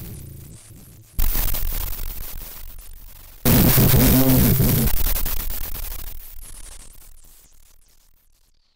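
Modular synthesizer one-shots: harsh, noisy glitch hits that start suddenly and fade away slowly. A new hit comes about a second in and another about three and a half seconds in. The second hit has a warbling low tone under the hiss and dies away near the end.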